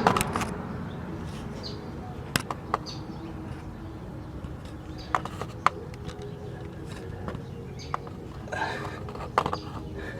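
Scattered sharp clicks and knocks of tools and metal parts being handled while a sway bar bushing and its bracket are refitted under a car, at irregular intervals over a steady low hum, with a short rustle near the end.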